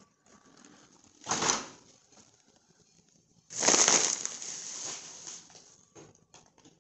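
Rustling and handling noise on a phone's microphone as fabric rubs against it: a short rustle about a second in, then a longer, louder one about three and a half seconds in that fades over a second or two, followed by a few faint clicks.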